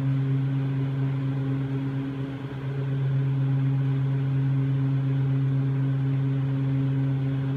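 Steady low machine hum with a few higher overtones, easing briefly about two and a half seconds in, from the ropeway summit station's machinery.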